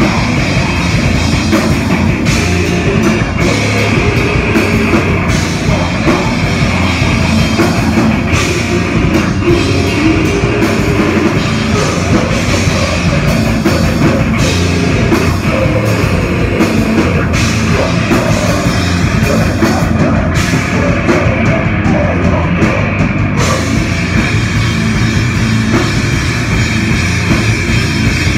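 Live heavy metal band playing loud and steady: electric guitars, bass guitar and a drum kit.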